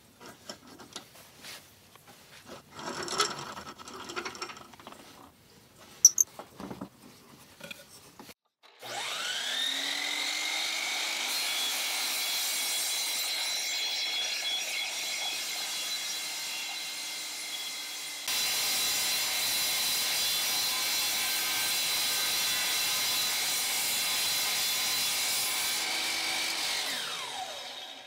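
DeWalt miter saw cutting aluminum T-track: the motor spins up about nine seconds in, runs at speed with a steady high whine, and winds down with a falling pitch near the end. Before that, a few knocks and clicks as the saw and track are handled.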